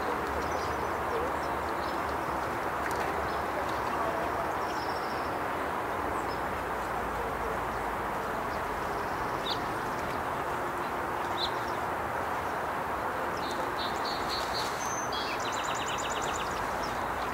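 Small songbirds chirping, short high chirps here and there, then a fast trill of rapid notes near the end, over a steady rush of wind.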